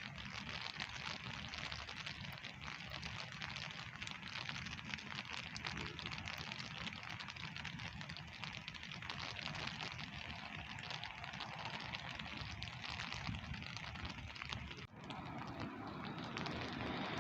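Steady rain falling, a continuous hiss full of fine individual drop patters. Near the end it briefly dips, then turns fuller and a little louder.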